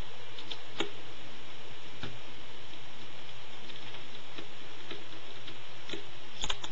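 Small Phillips screwdriver backing a tiny screw out of a netbook's plastic lid: a few faint scattered ticks over a steady hiss, with a sharper double click near the end.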